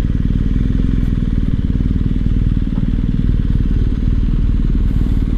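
BMW R1250 GS boxer-twin engine running steadily at low revs as the motorcycle rolls slowly along.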